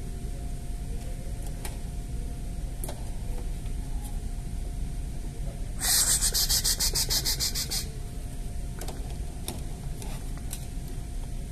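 Toy kitchen faucet's sound effect: a burst of running-water hiss, pulsing rapidly, that starts abruptly about six seconds in and cuts off two seconds later. There are a few light clicks of plastic toy dishes before and after it.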